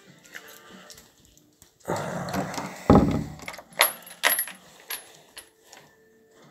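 A dog makes a short bout of vocal noise about two to three seconds in, the loudest sound here. It is followed by several sharp clicks and rattles.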